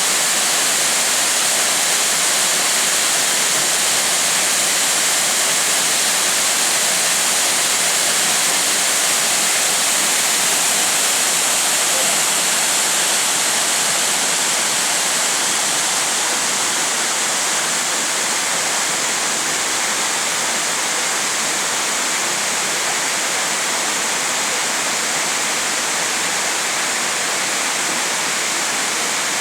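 A five-tiered waterfall with a 25 m drop, its water falling with a steady, even hiss that is strongest in the high range. The sound eases slightly in the second half.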